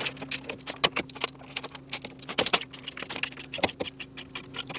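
Truck engine humming steadily under constant, irregular metallic jingling and rattling clicks from loose items shaking in the moving cab.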